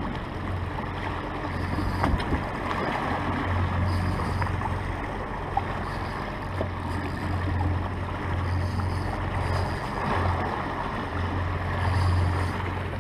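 Suzuki outboard motor running with a low steady hum while the boat moves, with water washing past the hull and wind buffeting the microphone.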